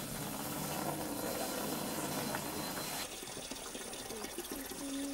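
Diesel running from a siphon hose into a jerrycan: a steady liquid fill.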